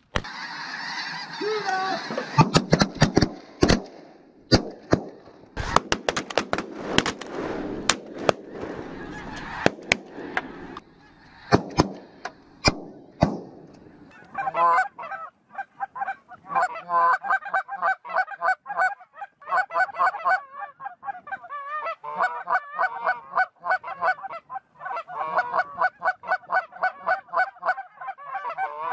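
A large flock of snow geese calling overhead, a dense, continuous chorus of honking that fills the second half. In the first half, a rapid series of sharp bangs from shotguns cuts through the flock noise.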